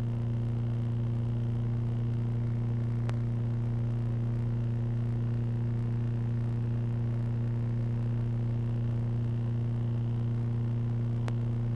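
Steady electrical mains hum, low and unchanging with a few higher overtones, on an audio line that carries no programme sound. Two faint clicks come about three seconds in and near the end.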